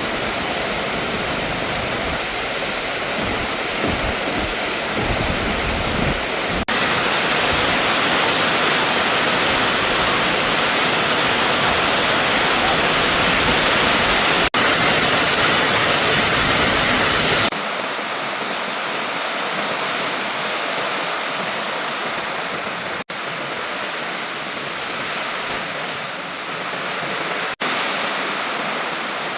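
Heavy rain pouring down in strong wind: a loud, steady rush of noise. It jumps in level and tone at several sudden cuts and is loudest through the middle stretch.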